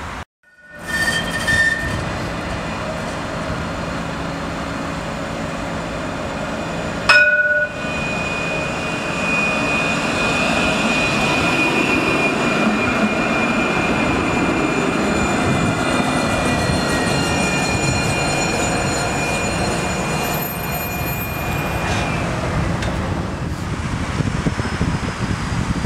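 Alstom Citadis low-floor tram running past on street track, with the rumble of wheels on rail and a steady high whine that lasts most of the pass and stops about 22 seconds in. The sound drops out briefly about half a second in and breaks with a click about 7 seconds in.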